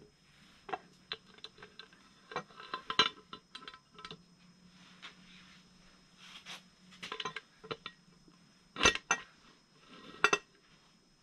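Clicks, taps and knocks of a VR6 upper timing cover being handled and fitted against the engine by hand, with a couple of sharper knocks near the end.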